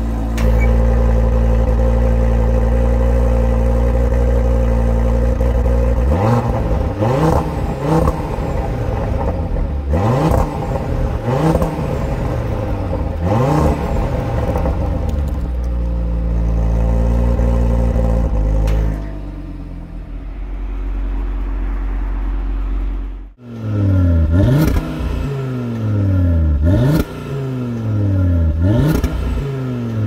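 Cupra Formentor VZ5's turbocharged 2.5-litre five-cylinder engine through its stock quad-tip exhaust: it idles steadily, is blipped about five times with the revs rising and falling, and settles to a lower idle. After a sudden break it is blipped again in a quicker run of about five revs.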